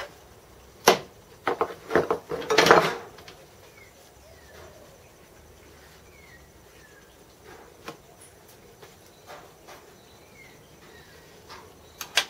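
Sharp metal clinks and taps from working G-clamps and tools against a clamped metal casting: a quick run of them in the first three seconds, then two more clicks near the end.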